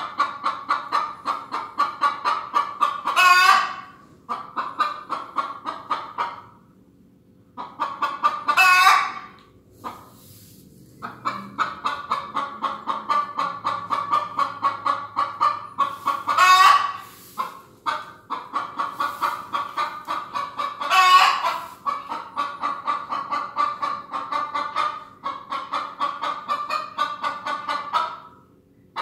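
Chicken clucking in a fast, steady run of about five clucks a second. Four times the run is broken by a louder, longer call, and twice by a short pause.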